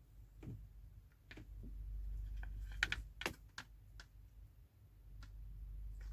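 Foley of a big paintbrush being stroked across a surface to stand in for painting, a faint scratchy sound with a few scattered light clicks and taps.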